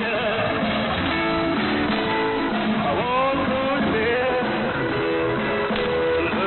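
Guitar music from a pirate AM shortwave broadcast, heard through a radio receiver. It sounds thin, with nothing above about 4 kHz, and a steady haze of static runs under it.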